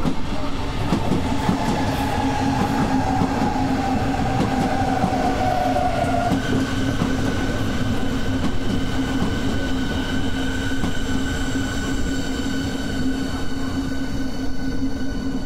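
Berlin S-Bahn class 485 electric train passing close and running away on the rails: a steady rumble with a low hum, and a whine that falls in pitch over the first six seconds. After that, higher whining tones hold steady.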